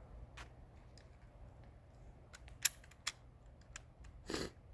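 A few sharp, isolated clicks, the loudest about two and a half seconds in and another half a second later, then a short rustle near the end.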